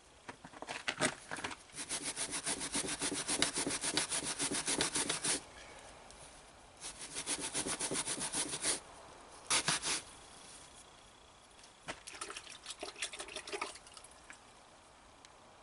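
Fast back-and-forth rubbing strokes on a surface, like hand scrubbing or scraping, many strokes a second. They come in bursts: a long one of about three seconds, then shorter ones.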